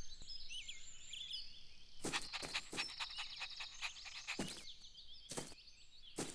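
Cartoon outdoor ambience of birds chirping, followed about two seconds in by a quick run of short sharp clicks and then a few single knocks.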